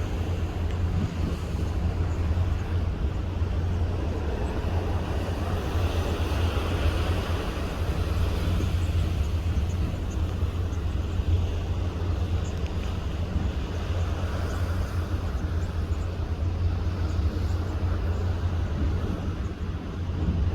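Strong wind rushing over the microphone on a boat: a steady low rumble with a hiss above it.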